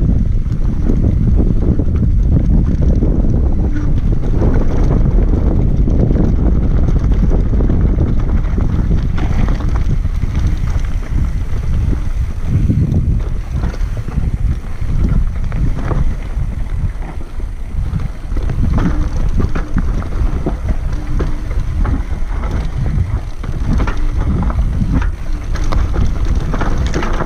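Downhill mountain bike rolling fast over loose rock and gravel, with wind buffeting the microphone and a run of clattering knocks as the bike rattles over the rough trail.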